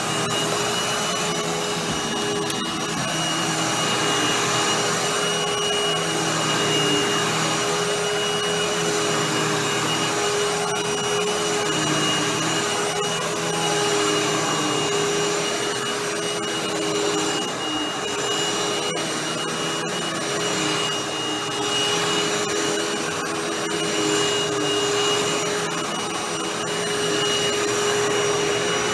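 Hoover WindTunnel Anniversary Edition bagless upright vacuum running steadily: a constant motor whine over rushing airflow, its level rising and falling slightly.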